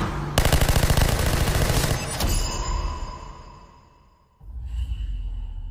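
Rapid automatic gunfire on a film soundtrack: a dense burst of shots starting about half a second in and lasting over a second, then dying away. A low rumble with a faint high tone comes in near the end.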